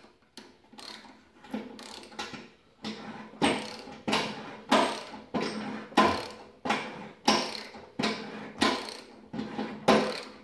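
A 5/8-inch tap being turned with a square-drive ratchet to thread a hole in a cast-iron bearing base. The ratchet is worked back and forth in short strokes, about three every two seconds, each a burst of clicking with the tap cutting metal.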